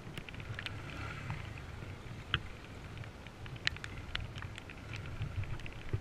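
Small motorcycle engine running at low revs as the bike rolls slowly over a muddy, rutted track, with scattered sharp clicks and ticks from the bike jolting over the ruts.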